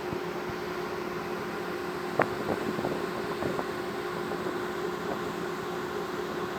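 Cargo ship's engines running with a steady drone and a constant hum, heard on board. A few light clicks come between about two and four seconds in.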